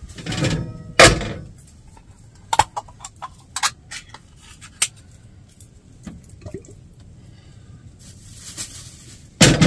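Cookware handling at a small camp stove: a saucepan lid lifted and clattered down onto a frying pan with a loud knock, a run of light clicks and taps as a can is handled, then sauce pouring from the can into the pot and a sharp knock near the end.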